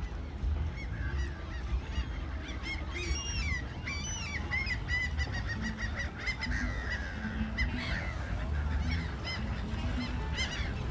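A flock of birds calling: many short, arching calls repeated and overlapping, over a low steady rumble.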